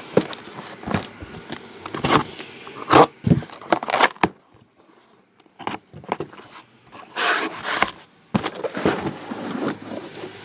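Cardboard shipping case being handled and the trading-card boxes inside moved: a run of sharp knocks and taps with scraping, a quiet stretch in the middle, then a longer scraping rustle of cardboard a little after halfway.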